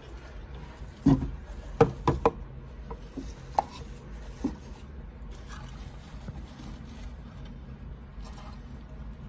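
A handful of sharp knocks and taps, several close together in the first few seconds, over a low steady hum.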